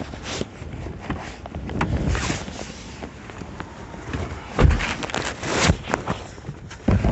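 Irregular knocking and rustling, with heavier thumps about four and a half, five and a half and seven seconds in.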